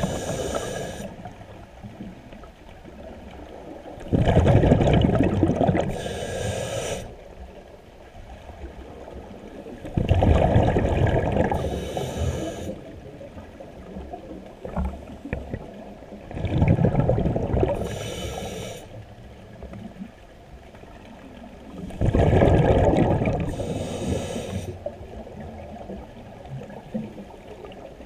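Scuba diver breathing through a regulator underwater: each breath is a short high hiss from the demand valve, then a loud burst of bubbles on the exhale. The cycle repeats about every six seconds, four or five times.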